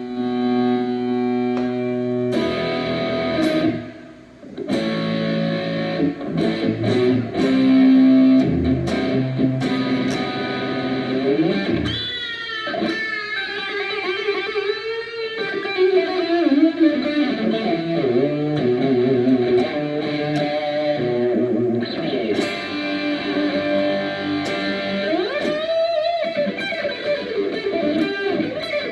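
Hurricane by Morris electric guitar being played through an amplifier with effects: held chords and notes, then lead lines with pitch bends and wavering notes.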